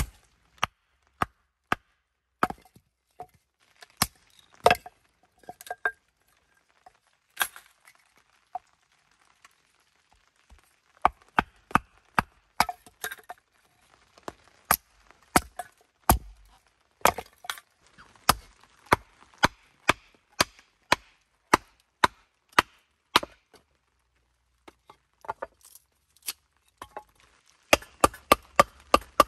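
Firewood being chopped: a run of sharp, irregular knocks, about one to three a second, with quicker flurries around the middle and near the end.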